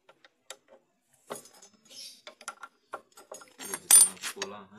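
Metallic clinks and clicks of a star-head (Torx) L-key being handled and fitted to the bolts of a scooter's front disc brake caliper, with a sharper metal clack about four seconds in.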